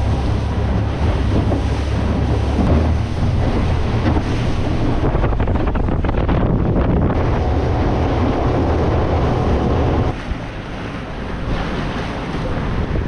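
Boat under way with its Honda outboard motor running, wind buffeting the microphone. About ten seconds in, the low engine rumble drops away and the sound gets quieter.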